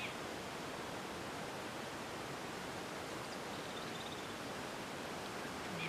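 Steady, even outdoor hiss, with a couple of faint high chirps about three and four seconds in.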